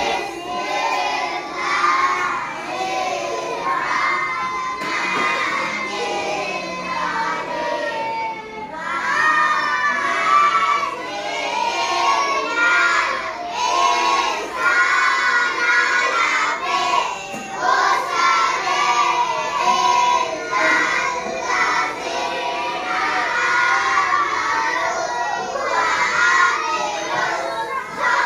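A group of children's voices singing and shouting together, loud and continuous.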